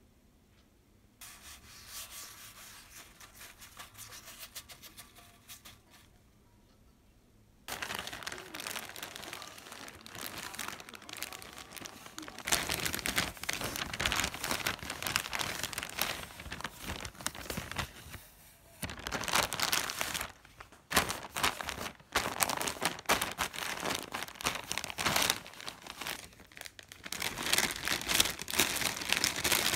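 Paper bag and plastic packaging crinkling and rustling as they are handled and opened. A softer rustle comes first, then louder crinkling in uneven spells with short pauses from about eight seconds in.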